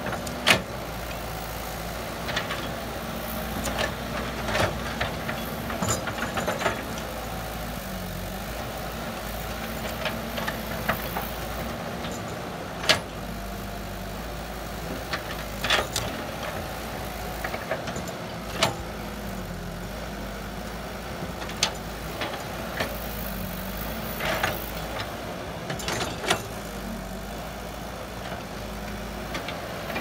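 Caterpillar crawler excavator's diesel engine running steadily as it digs, its note dipping briefly a few times under load, with sharp metallic clanks and knocks from the bucket and arm scattered throughout.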